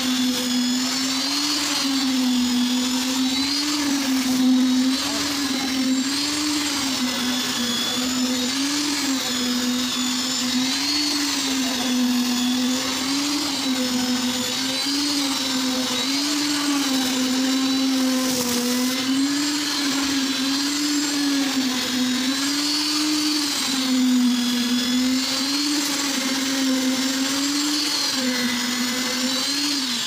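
Electric concrete needle vibrator running with a steady motor hum and whine, its pitch dipping and recovering about once a second as the poker is worked through the wet slab concrete.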